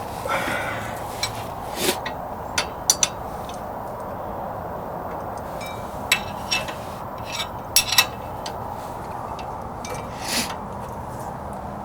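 Open-end wrenches clinking and knocking against each other and the hub-assembly bolts as the bolts are worked loose, about a dozen short metallic clinks, several ringing briefly, over a steady background hum.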